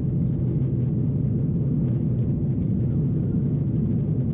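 Steady cabin rumble inside a Boeing 777-300ER airliner in flight: a deep, even drone of engine and airflow noise with no changes.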